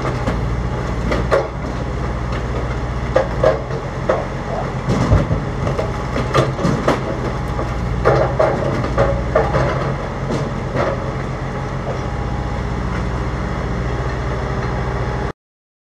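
Skid steer's diesel engine running steadily while driving a firewood processor attachment, with irregular knocks and clunks of wood being worked and falling, in clusters every second or two.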